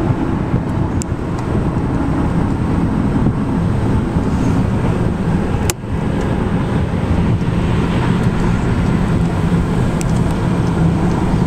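Steady road and engine rumble heard from inside a moving car at highway speed, with a single sharp click about halfway through.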